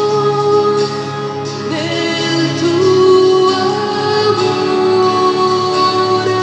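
A church hymn sung with instrumental accompaniment, the notes held long and changing slowly.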